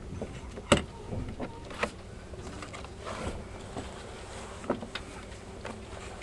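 Interior of an E351-series electric limited express train rolling slowly away from a platform: a steady low hum with a faint steady tone, broken by a few sharp knocks from the moving car, the loudest just under a second in.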